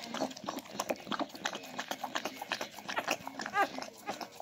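Newborn puppy giving one short, high squeak about three and a half seconds in, over a run of rapid small clicks.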